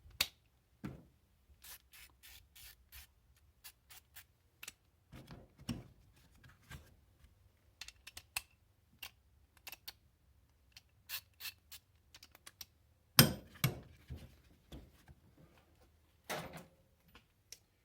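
Ratchets and sockets being handled: scattered sharp metal clicks and clinks as sockets are snapped onto the ratchets' square drives, with a louder knock about 13 seconds in and another near the end.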